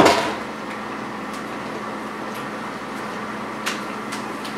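A single hard knock as a Black & Decker 20V battery chainsaw is set down on the countertop. A steady hum follows, with a faint click about three and a half seconds in.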